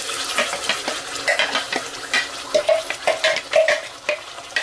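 Thick broccoli-and-cheese sauce poured from a blender jug into a hot, oiled non-stick pot, sizzling. Repeated short scrapes and knocks are heard as the jug is emptied and the sauce is worked in the pan.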